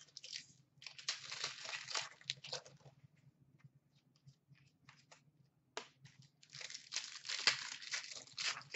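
Foil trading-card pack wrapper crinkling and tearing open in two spells, about a second in and again near the end, with a few light clicks and rustles in between.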